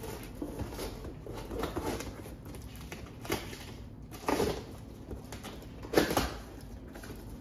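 Long cardboard shipping box being handled and opened: scraping and rustling of cardboard with irregular knocks, the loudest about four and six seconds in.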